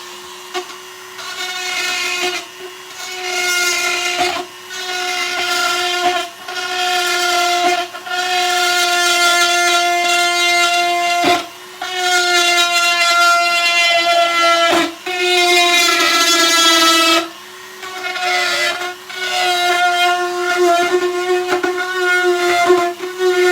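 Power drill whining at high speed in repeated one-to-three-second bursts with short pauses between, widening a hole in plastic.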